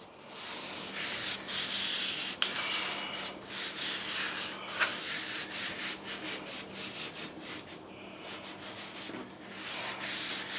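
Hands rubbing and pressing a Filon fiberglass sheet onto freshly spray-glued trailer skin to bond it: a run of quick, scratchy strokes that pauses briefly near the end and then starts again.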